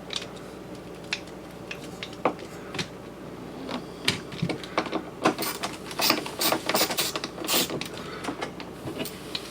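Light clicks and taps of hand tools and small metal hardware at a refrigerator door hinge as the hinge screw is worked on. The clicks come scattered at first and thicker and sharper through the middle and latter part.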